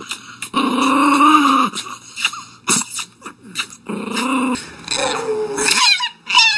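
Small curly-coated white dog growling in three drawn-out, wavering grumbles, baring its teeth as it is kissed on the face. Near the end a shorter, higher wavering whine follows.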